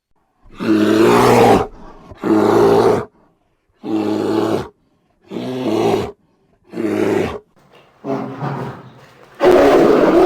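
Bear roaring: about six short roars with silent gaps between them, then a longer, louder roar that starts near the end.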